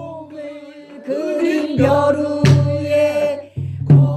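A woman singing pansori, holding long wavering notes in the strained, throaty style of the genre. Three deep drum strikes fall in the second half.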